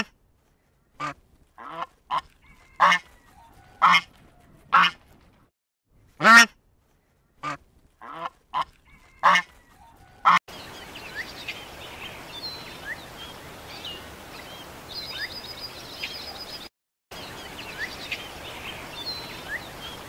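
White domestic geese honking, about a dozen short separate calls over the first ten seconds. After that comes a steady background hiss with faint chirps of small birds.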